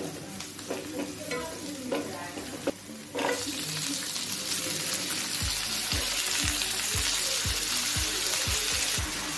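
Sliced onions and green chillies frying in oil in a pan, stirred with a spatula, which makes clicks and scrapes. About three seconds in a loud, steady sizzle takes over as potatoes and cauliflower go into the hot oil. From about halfway a low, regular beat of background music, about two a second, joins in.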